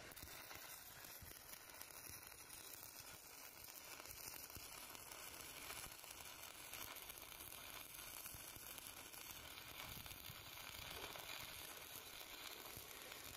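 Stick-welding arc burning steadily on a steel beam joint, a faint continuous sizzling crackle as the electrode runs a bead.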